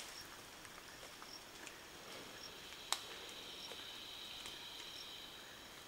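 Rainforest insects buzzing at a high pitch, the buzz strengthening about three seconds in, with short high chirps repeating roughly once a second. A single sharp click about three seconds in.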